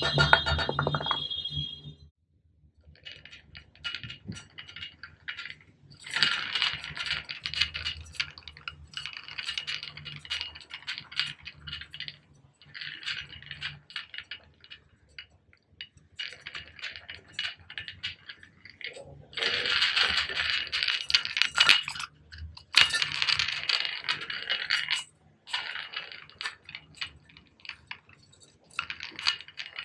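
Spray bottle trigger worked rapidly, giving quick runs of short clicking squirts in bursts of one to three seconds, with short pauses between bursts.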